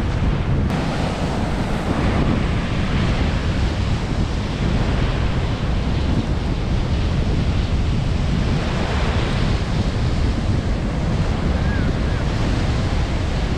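Sea surf washing onto the beach, steady, with strong wind buffeting the microphone.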